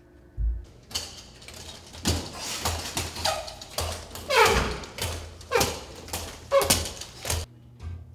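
Inline skates striding on a hard tiled floor: a run of knocks and scrapes, several with a squeaky falling pitch, that stops shortly before the end.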